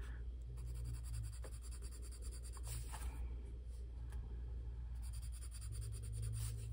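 Colored pencil scratching on paper in quick, faint strokes as boxes on a printed chart are shaded in.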